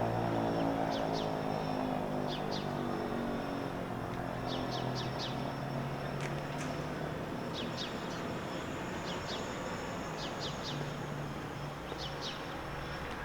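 Model 20 fire siren winding down at the end of its test: its falling pitch fades over the first few seconds into a low hum as the rotor coasts to a stop. Birds chirp in short repeated bursts throughout.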